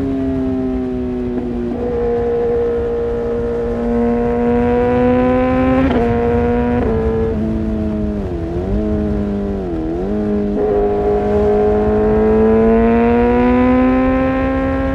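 Kawasaki ZX-6R inline-four running through an Arrow Pro-Race exhaust, under way at fairly high revs. The engine note holds steady with sudden steps in pitch a couple of times early on, dips and recovers twice in the middle, then climbs steadily near the end as the bike accelerates.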